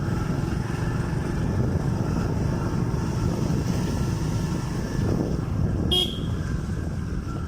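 Motorcycle running on the road with a steady low rumble; a brief high toot about six seconds in.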